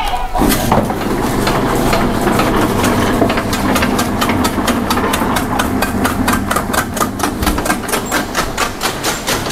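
Powered chaff cutter starting up about half a second in and running, then chopping Super Napier fodder grass as it is fed in, with rapid regular chopping strokes, about four to five a second, from a few seconds in.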